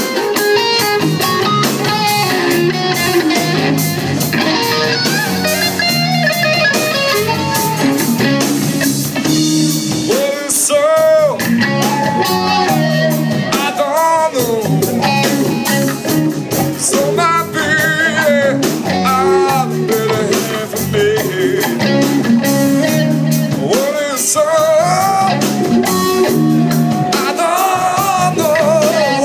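Live blues-rock band playing loud amplified music: electric guitar over bass guitar and a drum kit, with wavering, bending melody lines through the middle of the passage.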